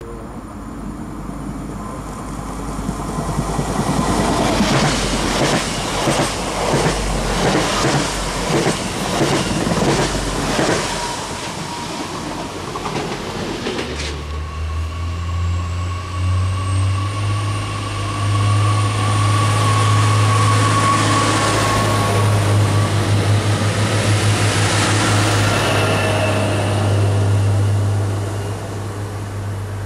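A train passing with a regular clickety-clack of wheels over rail joints, about two knocks a second. After a sudden change about halfway, a double-deck electric multiple unit runs past with a steady low hum and a faint rising high whine from its electric drive, dying away near the end.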